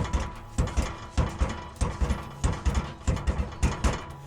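Bicycle tire bead snapping and popping into its seat on the rim: a run of sharp cracks with low thumps, about two or three a second.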